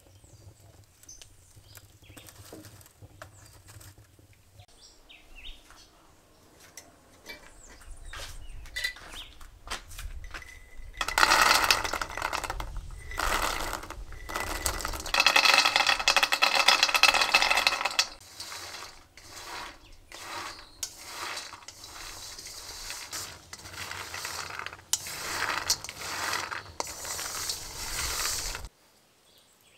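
A small fire crackles faintly with scattered ticks. About eleven seconds in, dried cacao beans pour loudly from a glass jar into a metal wok, a dense rattle with the pan ringing. The beans are then stirred with a wooden spatula, giving intermittent rattling and scraping strokes that cut off suddenly near the end.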